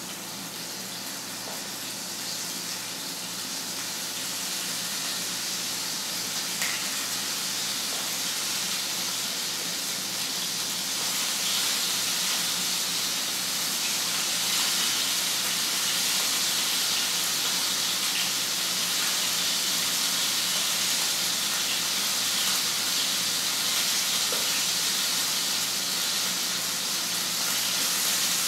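Prosciutto-wrapped, floured chicken breasts sizzling in hot olive oil in a frying pan: a steady frying hiss that grows louder over the first ten seconds or so, with an occasional small pop of the oil.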